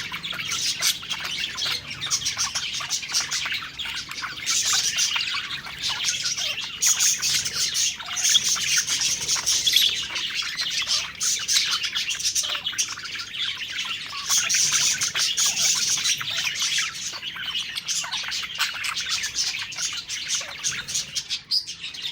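Several budgerigars chirping and warbling continuously, a dense stream of quick high chirps.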